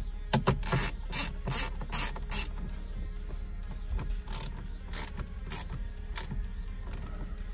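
Small hand screwdriver clicking as it tightens tiny T10 Torx screws into the navigation screen mount, about two clicks a second at first, then further apart.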